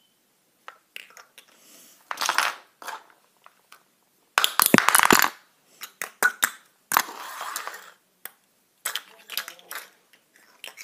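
Plastic model horses being moved about on a wooden floor: scattered clicks, taps and knocks, with three short rough scraping bursts, the loudest near the middle.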